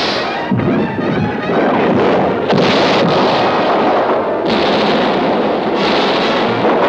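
Cartoon soundtrack: music mixed with a run of loud, noisy blasts like explosions or cannon fire, each one cutting in abruptly about every one to two seconds.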